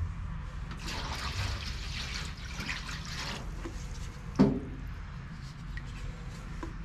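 Water poured from a jug into a stainless steel pan for a couple of seconds. A little after that comes a single sharp knock, the wooden yardstick striking the metal pan as the water depth is measured.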